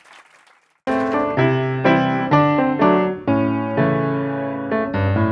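The tail of applause fades out, then piano music starts abruptly about a second in: notes and chords struck one after another, each ringing and dying away.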